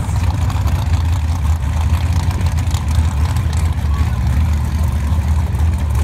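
Drag car's engine idling loudly after a burnout, a steady low rumble.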